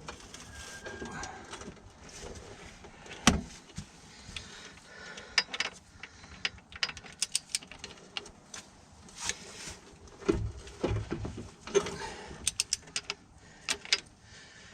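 Hand tools working bolts on an engine block: a string of sharp metallic clicks and knocks, with one heavier knock about three seconds in and quick runs of clicks later on.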